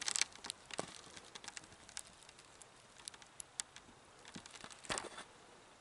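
Scattered small clicks and brief rustles of gear and clothing being handled, with a louder rustle near the end.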